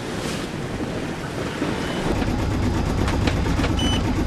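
Wind buffeting the microphone and water rushing along a sailing yacht under way at speed, getting louder and rougher about halfway through. A short high electronic beep sounds near the end.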